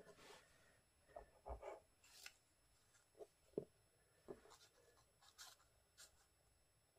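Faint paper-handling sounds: about a dozen soft, scattered taps and rustles as a fragile book page is glued and pressed down by hand.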